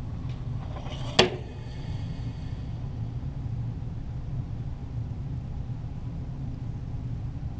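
A single sharp .22 pistol shot about a second in, followed by a brief ringing echo, over a steady low rumble.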